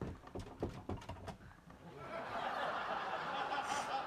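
People laughing: a few short chuckles, then from about halfway a dense wash of group laughter.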